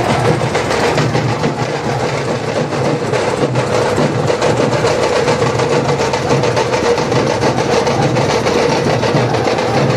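A street drum troupe playing a fast, unbroken beat on many drums together, loud and dense.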